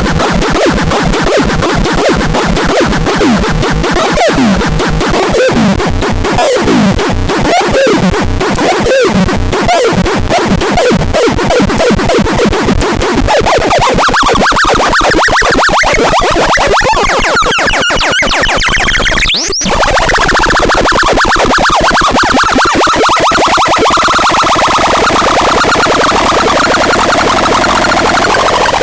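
Noisy electronic synthesizer music: a dense wash with sliding pitches, then a fast chopped stutter, a quick upward sweep about two-thirds of the way through, and a steadier buzzing drone after it.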